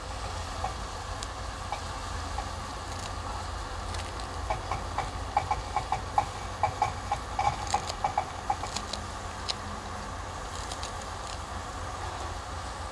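Ground onion and garlic masala frying in oil in a kadai, a soft steady sizzle, with a run of light quick ticks for a few seconds in the middle.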